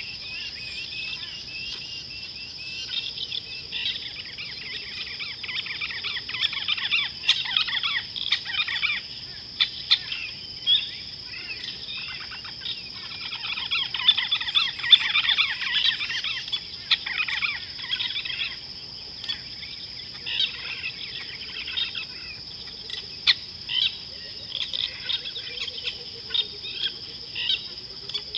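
A chorus of wild birds chirping and trilling in repeated bursts over a steady, high-pitched insect drone.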